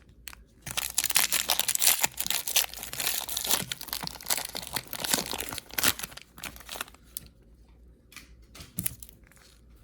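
A trading-card pack's wrapper being torn open and crinkled: dense crackling for about six seconds, then a few faint rustles near the end.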